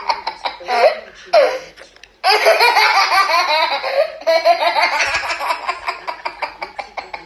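A toddler laughing loudly around a pacifier in rapid runs of ha-ha pulses. A short lull comes about two seconds in, then a long unbroken run of laughter.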